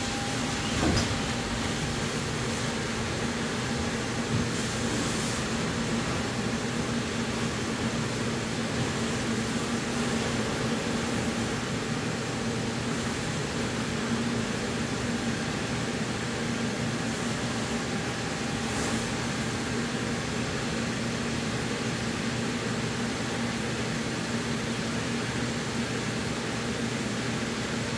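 Electric inflation blower of an inflatable paint booth running steadily, a constant hum over airflow noise as it keeps the booth inflated.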